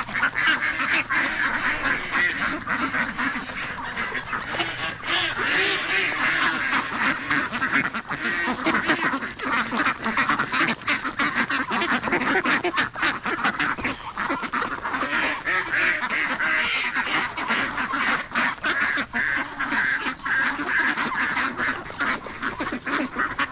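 A flock of domestic ducks quacking continuously, a dense clamour of many birds at once, as they are being fed.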